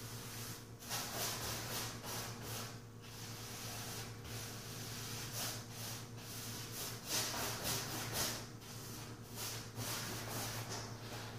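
Paintbrush brushing paint onto a drywall wall while cutting in along the edges: an irregular run of short swishing strokes.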